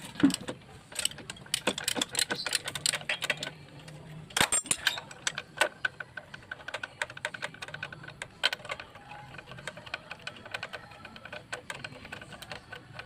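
Hand tools clicking, tapping and clinking on the metal of a motorcycle's cylinder head as it is worked on and taken apart. The clicks come thick and irregular for the first few seconds, then thin out to scattered taps.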